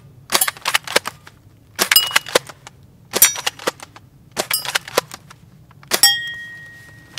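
A Crown Type 96 Junior spring-powered bolt-action airsoft rifle is fired five times in quick succession, about a second and a half apart. Each cluster is the shot, the clack of the bolt being worked to recock the spring, and the ping of a BB hitting a small steel plate. The last hit, on the stop plate, rings on for about a second.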